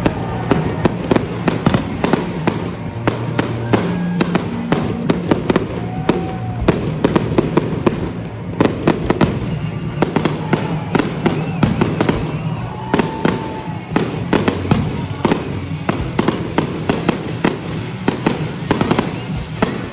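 Fireworks going off in quick succession: sharp bangs and crackles several times a second, over steady background music.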